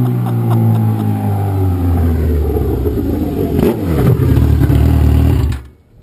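Kawasaki Z1000 inline-four engine running through an exhaust with its baffle (dB killer) removed, really loud. Its note falls steadily as the bike slows, with a sharp crack about three and a half seconds in, then a steadier lower note that cuts off suddenly near the end.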